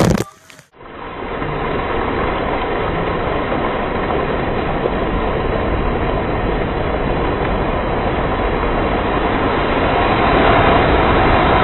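Water pouring and splashing down from a water-play tower's giant tipping bucket, a steady rush that grows louder near the end.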